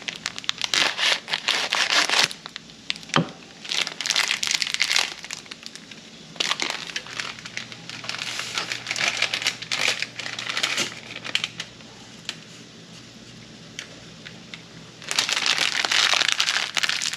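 Fresh lemons squeezed over a hot pan, in several crackling, crinkling bursts with short pauses between them. A faint steady hum comes in partway through.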